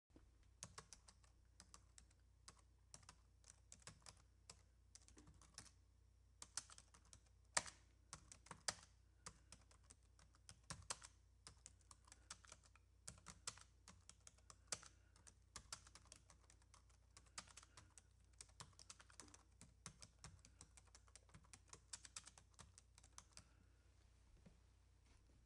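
Quiet computer keyboard typing: quick, irregular key clicks that stop about two seconds before the end, over a faint low hum.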